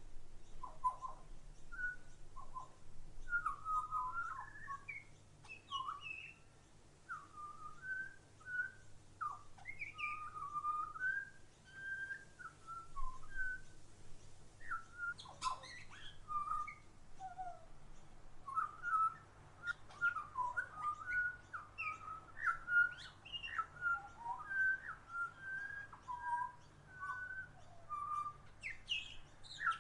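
Backyard songbirds singing and chirping: a near-continuous run of short whistled notes and warbled phrases.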